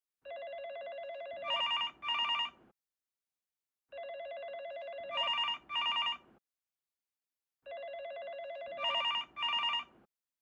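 Electronic telephone ringing three times, about four seconds apart: each ring is a fluttering low trill followed by two louder, brighter beeps.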